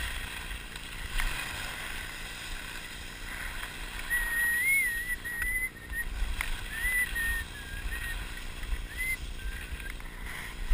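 Wind buffeting a GoPro's microphone with the hiss of skis carving down a groomed slope. A thin, wavering whistle-like tone comes and goes through the middle.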